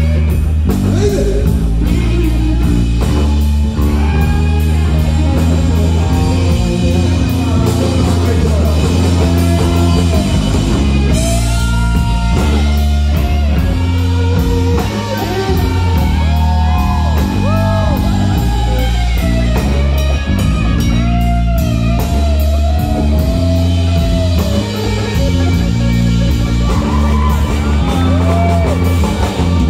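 Live rock band playing loud, with electric guitar, bass guitar and a drum kit, and a singer.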